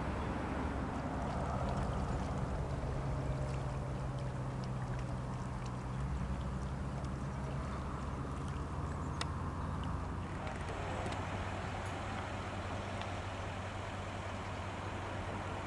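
Steady low engine drone under outdoor noise, with a few faint clicks; the low hum shifts pitch about ten seconds in.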